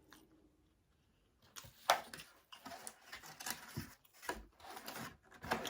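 Close-miked chewing with mouth smacking: a run of irregular wet clicks and crunches that starts about a second and a half in, after a near-quiet moment.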